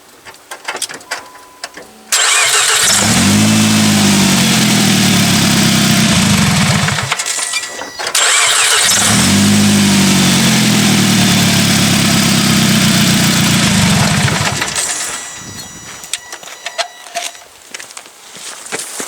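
A car engine cranked by its starter motor in two long attempts of about five and six seconds, with a short pause between them, right after new battery terminals have been fitted.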